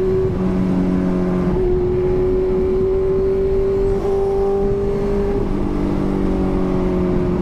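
Benelli TNT600's 600 cc inline-four engine running at steady cruising revs under way, heard from the rider's position over low wind noise. The pitch holds nearly level, easing up slightly and then dropping a little about five and a half seconds in.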